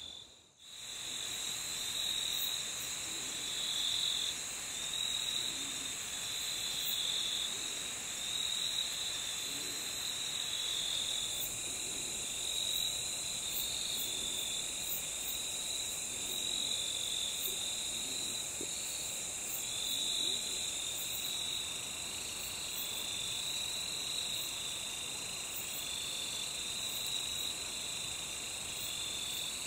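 Night insect chorus of crickets: a steady high trilling with a lower chirping note that pulses about once a second.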